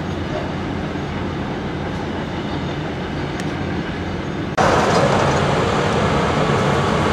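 Caterpillar 950H wheel loader's diesel engine running as it dumps a raised bucket of dirt and rock. About four and a half seconds in, the sound cuts abruptly to a louder, harsher din of construction-site machinery.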